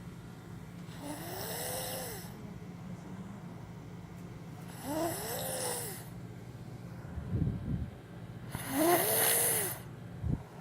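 A two-year-old child snoring loudly: three snores about four seconds apart, each a raspy breath with a whistling tone that rises and then falls, the last one the loudest. Two short low thumps come between the second and third snores and near the end, over a steady low hum.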